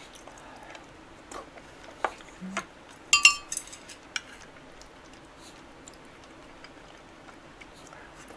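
Chopsticks and a spoon clicking against dishes and bowls while eating: a few sparse taps, with a brighter ringing clink about three seconds in.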